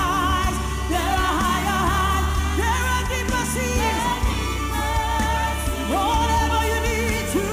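Live gospel choir singing a worship song with band accompaniment, the voices holding long wavering notes over a steady bass.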